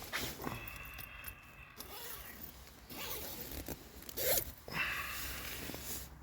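A zip being pulled in several short rasping strokes, the loudest about four seconds in, likely the zip of the sleeping bag.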